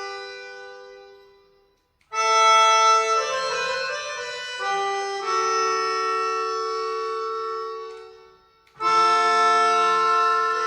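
Pianica (keyboard melodica) playing held chords that swell and fade away, with a short silence about two seconds in, then a new chord with moving inner notes, and another chord entering near the end.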